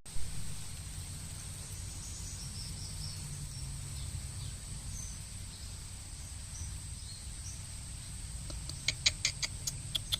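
Rural outdoor ambience: a steady high insect-like whine over a low rumble, with faint scattered bird chirps. Near the end comes a quick series of sharp chirps, about six a second.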